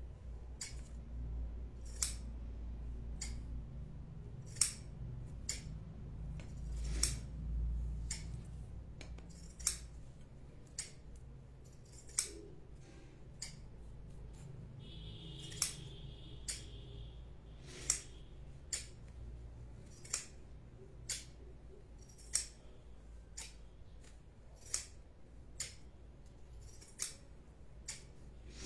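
Small sharp snipping clicks, roughly one a second and not quite evenly spaced, over a low steady hum.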